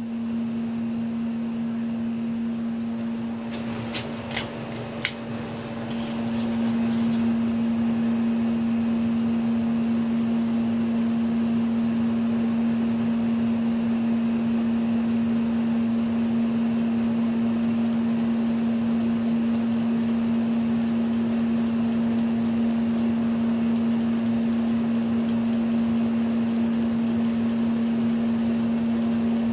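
1987 Lasko 3600L ceiling fan's motor running with a steady electrical hum on one strong tone. A few sharp clicks come about four to five seconds in, after which the hum grows louder and then holds steady.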